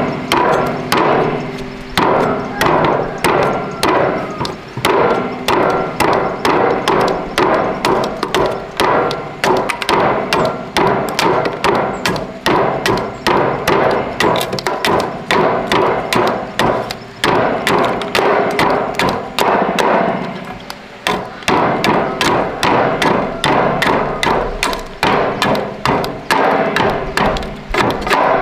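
A hammer striking again and again at about three to four blows a second, with a short break about twenty seconds in.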